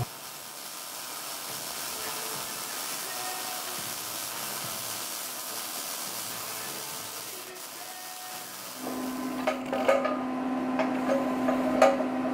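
Workshop tool noise: a steady hiss, then about nine seconds in a machine hum starts, with scattered sharp metallic clicks and knocks over it.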